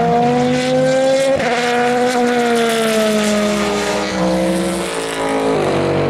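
Nissan V8 of a Morgan LMP2 prototype race car at full throttle: the engine note climbs, breaks for a quick upshift about a second and a half in, then falls away steadily as the car passes and slows, with a jump up in pitch near the end as it changes down.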